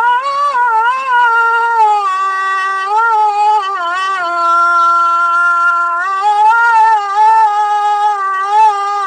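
A man's solo voice chanting the ezan (Islamic call to prayer) in one unbroken, ornamented melodic line. The pitch winds up and down, with a long held note about halfway through.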